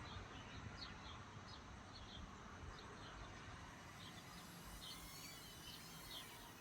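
Faint outdoor ambience: small birds chirping now and then over a low rumble of wind.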